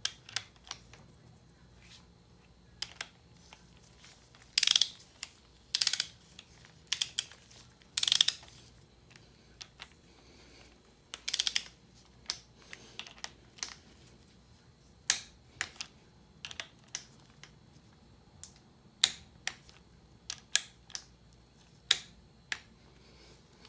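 Ratchet of a torque wrench tightening camshaft sprocket bolts on a Chevy small-block 350: several short ratcheting runs in the first half, with many single sharp clicks throughout.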